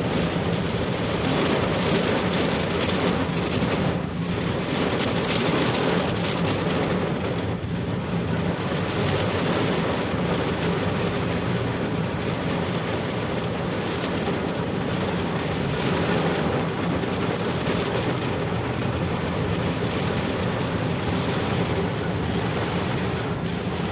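Wind rushing over the microphone with a vehicle engine running steadily underneath, the sound of riding along a road.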